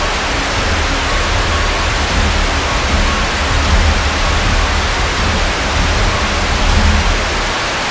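Loud, steady hiss of television static with a low rumble underneath, an edited-in horror sound effect.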